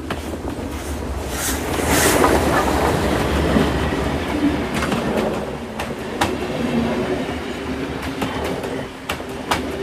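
Model train running on its track, its wheels clattering with sharp clicks over the rail joints. It grows louder over the first two seconds, then eases off slightly as it passes.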